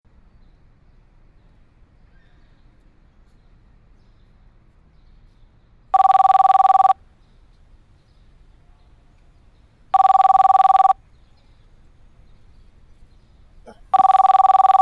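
Landline desk telephone ringing: a warbling two-tone ring, three rings of about a second each, spaced about four seconds apart.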